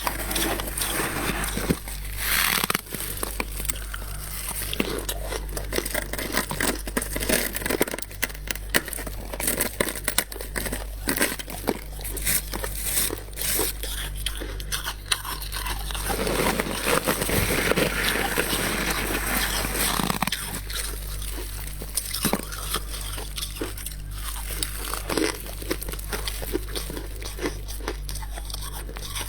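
Freezer frost crunching as it is bitten and chewed, with dense, irregular crackling crunches. The crunching is denser and louder a little past the middle.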